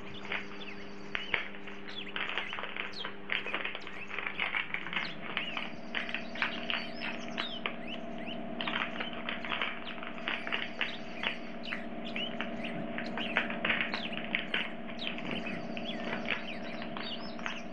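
Small birds chirping and twittering over and over in quick short calls. Underneath runs a steady low hum that shifts pitch about four and a half seconds in.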